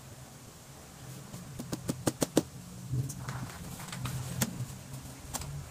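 Vinyl upholstery cover being pulled and smoothed over a foam chair seat: rustling and handling noise with a quick run of sharp clicks about two seconds in and two more single clicks later, over a steady low hum.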